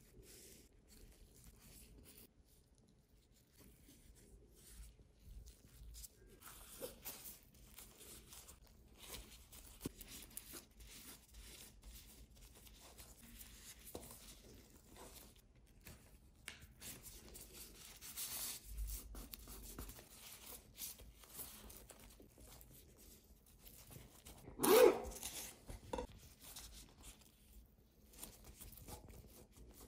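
Gloved hands handling a sushi roll and a sheet of nori: soft, intermittent rustling and crinkling of disposable gloves and dry seaweed, with one louder crackle near the end.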